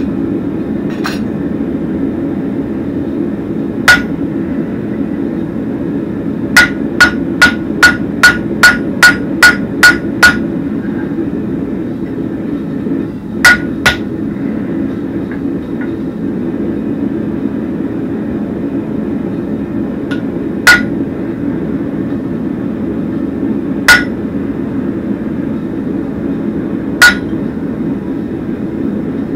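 Hammer blows on hot steel over a Hay-Budden anvil, each strike ringing clearly: one blow, then a quick run of about ten blows at roughly three a second, then a pair and a few slow single blows. They are shaping the cap-gripping tab of a horseshoe bottle opener. A steady low drone runs underneath.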